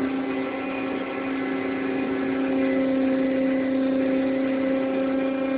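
Ship's deck crane machinery running during grab discharge: a steady mechanical hum with several fixed tones, dipping slightly about a second in and then holding level.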